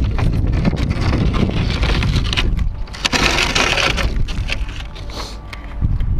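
Wind buffeting the microphone while a person runs across dry gravel and dirt, footsteps crunching, with a burst of scraping, crunching noise about three seconds in.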